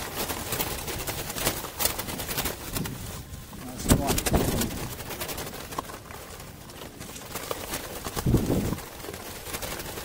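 A flock of doves in a wire-mesh cage flapping and fluttering their wings in short bursts, with sharp wing clatters a few times.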